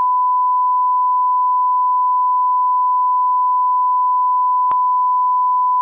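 Steady 1 kHz bars-and-tone reference tone, a pure sine held at one pitch, with one brief click about three-quarters of the way through.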